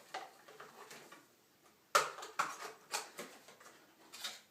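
Handling noises from a shower filter kit's box and parts: irregular clicks, taps and rustles, the sharpest knock about two seconds in.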